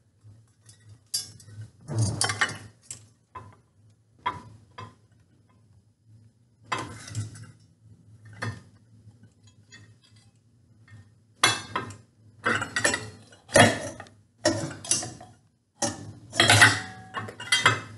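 Metal ceiling fan housing and mounting hardware clinking and rattling as it is handled and worked on at the ceiling mount: scattered clinks at first, then a dense run of rattling over the last six seconds.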